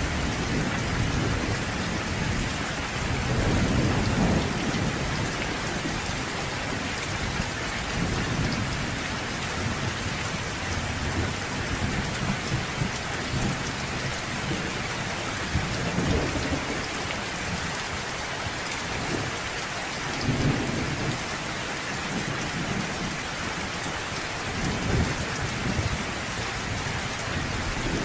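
Steady rain falling, with low thunder rumbles swelling up several times, the strongest about four seconds in.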